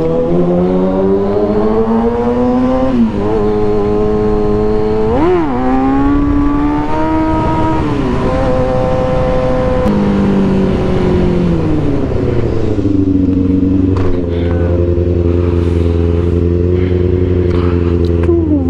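Kawasaki ZX-6R inline-four running through an M4 GP exhaust under way: the engine pitch climbs, drops at an upshift about three seconds in, jumps in a quick rev blip a little after five seconds, climbs again, then eases off and holds a steady cruise for the second half, with wind rush underneath.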